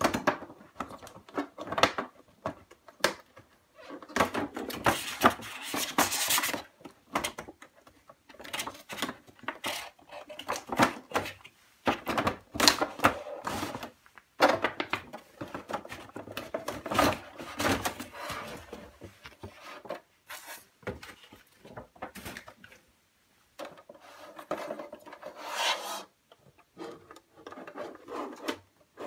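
Cardboard window box and hard plastic display case being handled and slid apart: rubbing and scraping of cardboard against plastic, broken by many small clicks and taps, with a few longer scraping stretches and short pauses.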